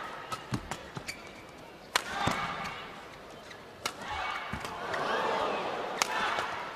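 Badminton rally: sharp cracks of rackets striking the shuttlecock every second or two, with crowd noise in the arena swelling in the second half.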